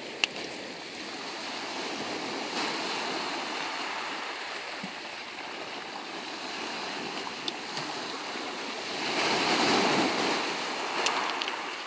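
Small sea waves washing in on a sandy shore, with water sloshing around wading dogs. A wave breaks louder about nine seconds in, and there are a few brief sharp clicks.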